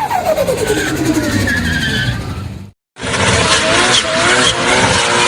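A car engine, its pitch falling away over the first couple of seconds, then a sudden gap of a split second. A second passage follows: a car running hard with a wavering high squeal, typical of tyres skidding.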